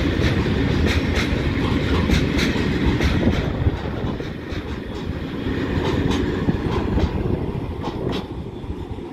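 Freight train of loaded container flat wagons rolling past: a steady low rumble with wheels clicking over rail joints a couple of times a second, easing off a little near the end as the last wagon goes by.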